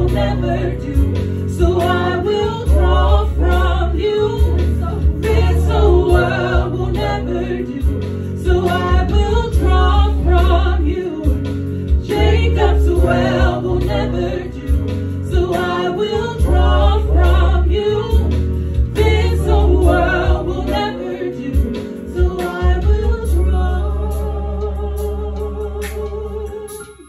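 Gospel worship song performed live by a small vocal group with a Yamaha Motif8 keyboard playing sustained chords over a heavy low bass. The music fades down near the end.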